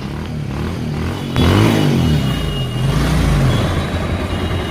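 Bajaj Pulsar 150's single-cylinder four-stroke engine being revved with the throttle, rising sharply about a second in and again near three seconds. It is running smoothly after an engine repair, its sound called very nice.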